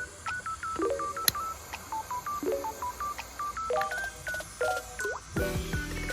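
Background music: a quick melody of short, bright electronic notes stepping up and down, with lower chords coming in about once a second.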